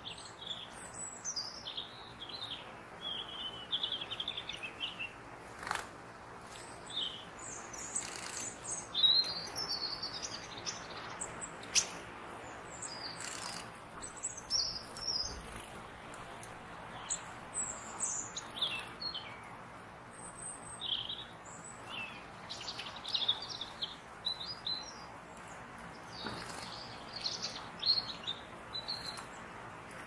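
Woodland songbirds chirping and calling in many short overlapping high phrases and trills, over a faint steady hiss.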